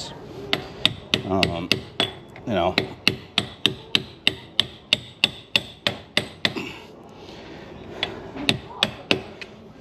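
Hammer blows knocking a motorcycle's heel shift lever onto its splined shift shaft. There are a few spaced strikes, then a quick run of about three a second for a few seconds, then a couple more near the end.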